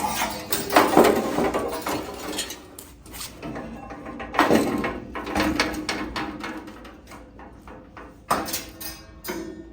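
Rusted sheet-metal plenum panel being bent and folded over by hand: irregular creaking, scraping and crackling of corroded steel, with sharp clicks and knocks.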